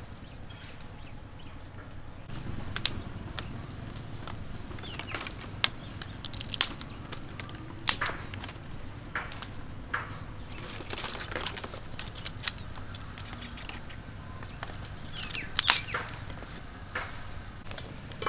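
Small fire of dry twigs catching and burning, with irregular sharp cracks and snaps every second or few over a low steady rush that comes up about two seconds in.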